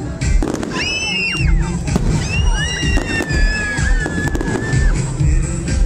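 Aerial fireworks going off in quick succession, with sharp bangs and several high whistles that rise and fall, the longest lasting over two seconds. Loud music with a steady bass beat plays underneath.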